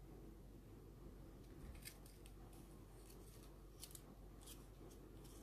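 Near silence broken by a few faint, short scrapes and clicks as a plastic belt sander attachment and its sanding belt are handled and fitted onto an angle grinder.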